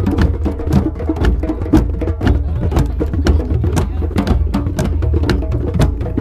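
A drum circle playing hand drums, djembe and conga among them, with a plastic bucket struck with sticks, in a fast, steady rhythm of sharp slaps over deep thumps.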